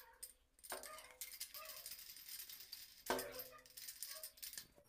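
Faint, rapid crackling and small clicks of PTFE (Teflon) thread-seal tape being pulled off the roll and wound onto the threads of a metal shower-arm fitting.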